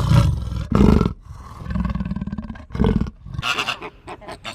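Large animal giving a string of deep roars and grunts, one held longer about two seconds in, followed by quick, higher calls in rapid succession near the end.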